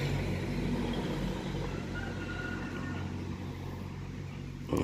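A motor vehicle's engine running steadily, slowly growing fainter.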